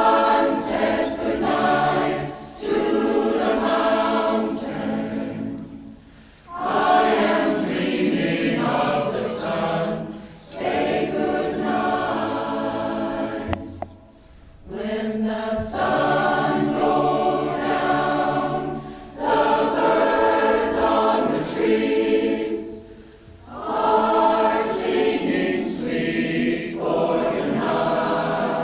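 Choir singing in long phrases, with short breaks between them roughly every six to eight seconds.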